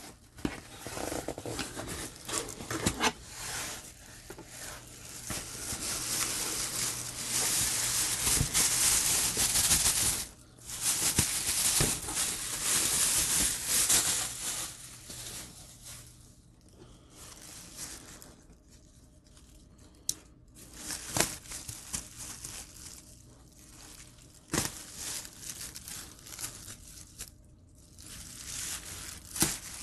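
Thin plastic grocery bag rustling and crinkling as it is handled and pulled out of a cardboard box and its knotted handles are worked loose. The rustling is loudest and continuous in the first half, then turns quieter and patchy, with a few sharp clicks.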